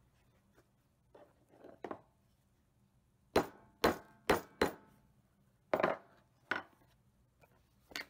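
Sharp metallic knocks on a steel bench anvil: four in quick succession about three and a half seconds in, then two more about a second later, after a few softer taps.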